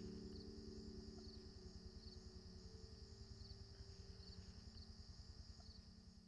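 Faint, fading sound: a steady high insect trill over a low held drone, both dying away near the end.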